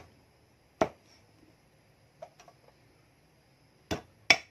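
Scattered sharp knocks of a cleaver chopping pork on a chopping board: one loud strike about a second in, two light taps midway, and a loud pair near the end.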